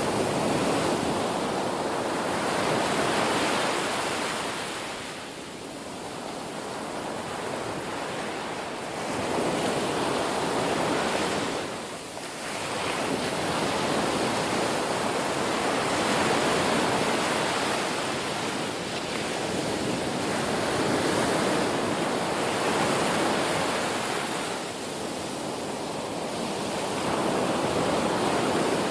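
Ocean waves breaking and washing on a shore, a continuous surf roar that swells and ebbs every few seconds.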